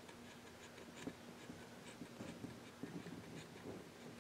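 Faint scratching and light irregular ticks of a hot knife blade scoring along the stenciled design lines in a wooden clock face, over a faint steady hum.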